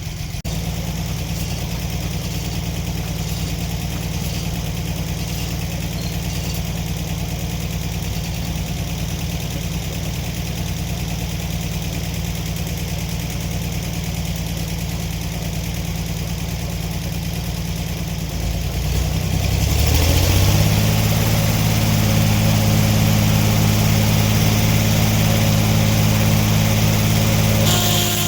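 Sawmill engine running steadily, then about two-thirds of the way through revving up and holding at a higher, louder speed for cutting.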